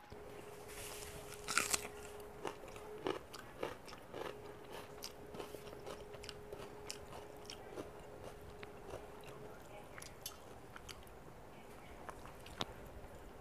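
Close-miked eating sounds: chewing, wet mouth clicks and smacks as rice and rohu fish curry are eaten by hand, with a louder crunch about a second and a half in. Fingers mix rice against the metal plate between mouthfuls.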